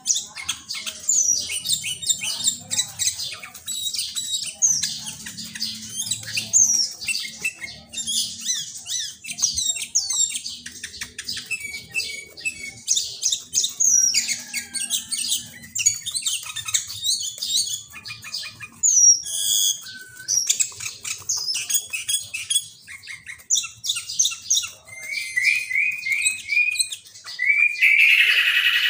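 Sooty-headed bulbul (kutilang) singing a fast, busy stream of high chirps and whistled glides, its song filled with imitated greater green leafbird (cucak ijo) phrases. In the last second a loud, harsh buzzing call.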